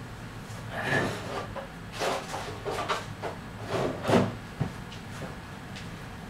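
Rummaging through a drawer: a run of irregular rustles and knocks as objects are shifted about, with a sharp click a little past four seconds in.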